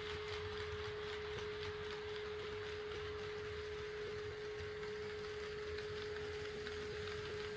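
HO-scale model train running on the layout, its electric motor giving a steady single-pitched hum, with a few faint clicks from the track.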